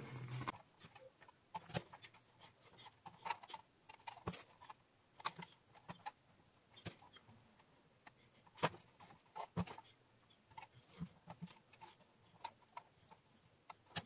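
Near quiet, broken by faint short clicks about once a second.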